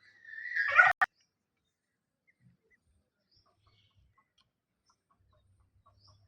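A bird gives one loud, angry call about a second long that grows louder and cuts off, followed at once by a sharp click; after that only faint small ticks.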